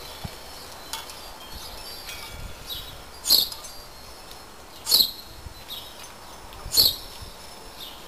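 Wind chimes tinkling, with three sharp, high clinks spaced one and a half to two seconds apart.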